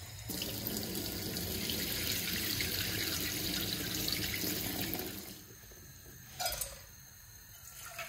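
Kitchen tap water running into a steel bowl of crushed wheat and spilling over into a steel sink as the wheat is rinsed. The water stops about five seconds in, and a short knock follows a little later.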